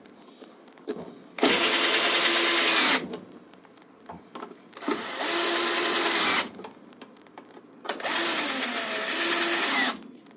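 Power drill-driver running in three short bursts of one and a half to two seconds, driving in the bolts that hold the grinder in place.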